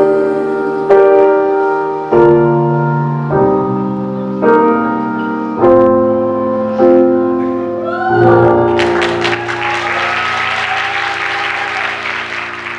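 Slow piano chords struck about once every 1.2 seconds. About nine seconds in, an audience's applause and cheers break in over a held chord, and everything fades out near the end.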